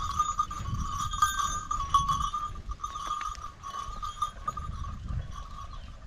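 Bells on a pair of Hallikar bullocks ringing continuously as they walk pulling a wooden plough, with a low rumble underneath.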